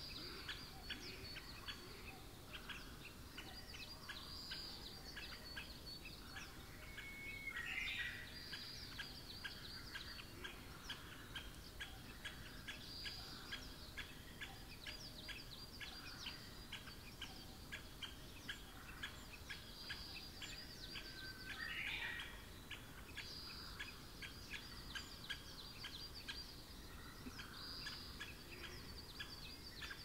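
Small forest songbirds singing: a high phrase repeats every four to five seconds over rapid, continuous twittering. Two louder calls stand out, about eight and twenty-two seconds in.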